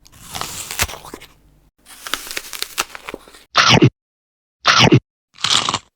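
Eating and drinking sound effects. First come two stretches of crackly, crunchy noise with sharp clicks. Then come two short sounds that sweep quickly down in pitch, a second apart, and a brief hiss near the end.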